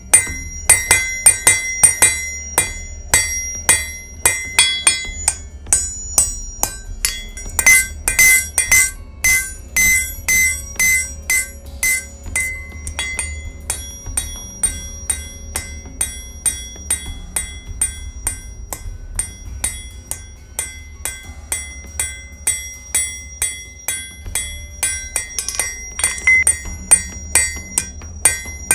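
Hand hammer striking red-hot mild steel on an anvil, about three blows a second, each blow setting the anvil ringing. The hammer's peen is spreading the flattened bar out sideways into a spearhead blade.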